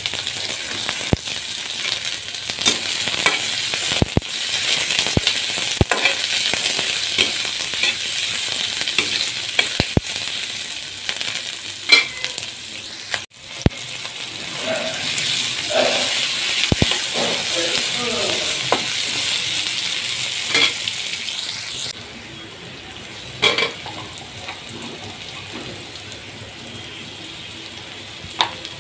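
Sliced onions sizzling in hot oil in a karahi, with the spatula clicking and knocking against the pan as they are stirred. The sizzle breaks off briefly about halfway through and turns quieter later on.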